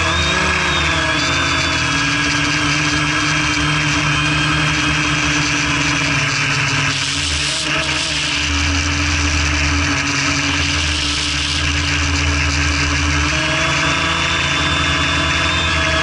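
Quadcopter's electric motors and propellers whining steadily in flight, heard from the craft itself, the pitch dipping and rising slightly as the throttle changes. Wind rumbles on the microphone, with a brief rush of wind noise about seven seconds in.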